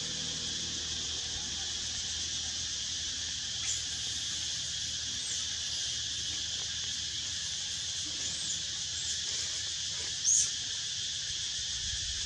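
A steady, high-pitched insect chorus, with a few short, high chirps over it, the loudest about ten seconds in.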